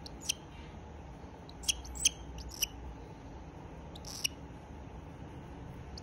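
Cockatiel giving short, high chirps, about five of them scattered over six seconds, each a brief pitched peep, over low steady room noise.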